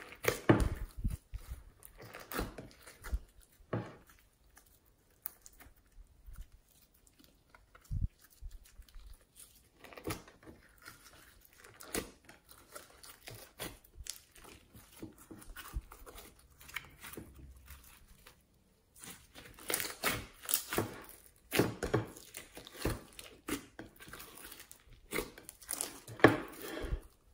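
Slime mixed with foam beads and sprinkles being kneaded and squished by hand in a glass bowl: irregular sticky crackles, clicks and squelches, denser and louder in the second half as the slime is stretched and pulled.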